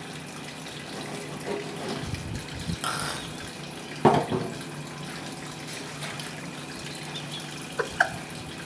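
Tap water running into a kitchen sink as a fish is rinsed and handled, with a few sharp knocks: one a little after four seconds in and two close together near the end.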